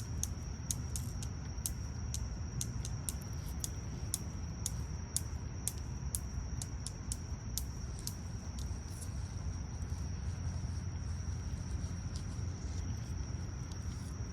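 Night insects trilling in one steady high-pitched note, with scattered sharp clicks and a low rumble underneath.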